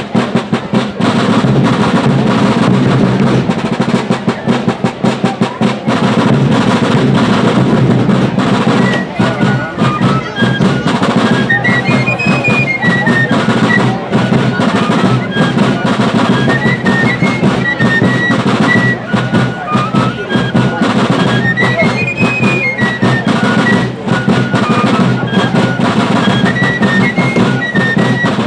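Fife and drum corps playing. The drums beat a steady cadence with rolls, and the fifes come in on a high melody about nine seconds in.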